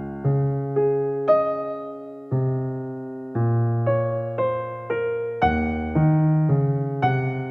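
Soft background piano music: slow notes and chords, each struck and left to fade.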